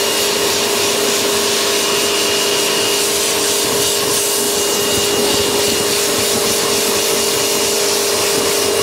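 Pressure washer (jet wash) running and spraying: a steady hiss of water spray over a constant motor and pump hum.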